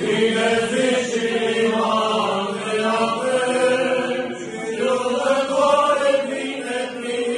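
Eastern Orthodox funeral chant: voices singing a slow liturgical chant with long held notes.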